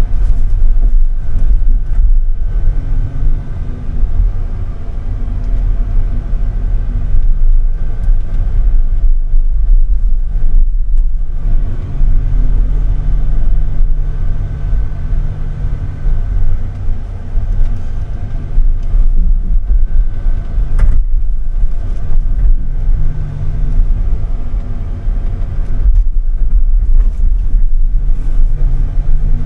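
Timber truck's diesel engine running under load from its hydraulic log-loading crane: a heavy steady rumble that swells and eases several times as the crane works, with a thin steady whine above it.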